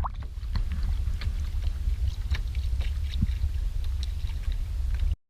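Wind rumbling on the microphone aboard a kayak, with light water lapping and small ticks against the hull; the sound cuts off abruptly near the end.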